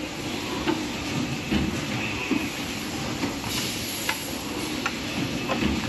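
Box-making machinery running on a factory floor: a steady mechanical rumble with sharp clicks and knocks at irregular intervals.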